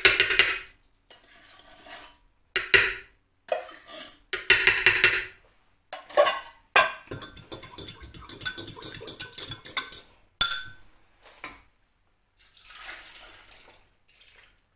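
Kitchen handling sounds. A metal tin of coconut milk is knocked and scraped, then a metal fork stirs fast in a glass measuring jug, scraping and clinking against the glass for a few seconds midway. Near the end comes a softer stretch as liquid is poured from the jug.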